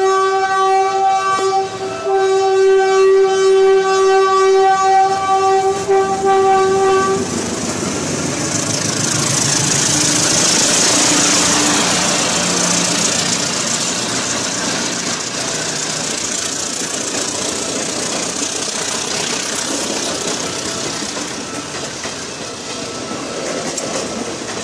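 Philippine National Railways ex-JR 203-series electric multiple unit sounding its horn, a short blast and then a longer one of about five seconds, then passing close by with a loud rush of wheel and rail noise that swells and slowly fades as the cars go by.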